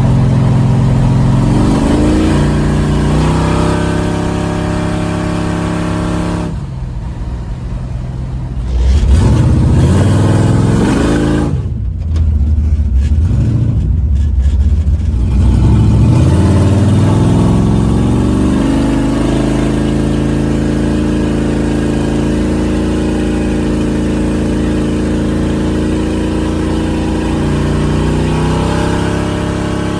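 Chevy 355 small-block V8 driving under moderate throttle, its note rising as it pulls, settling at cruise and dropping again several times, with abrupt changes between driving clips.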